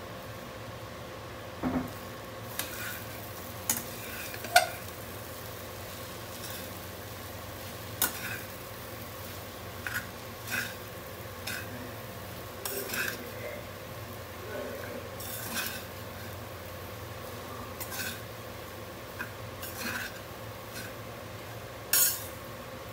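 A spatula stirring and scraping soaked puffed rice with onion and tomato in a pan, with irregular clinks against the pan about once a second or two, over a steady faint hum.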